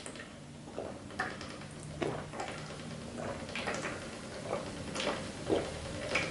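A person gulping down water straight from a plastic mineral-water bottle: a string of short swallows and bottle clicks, about one or two a second.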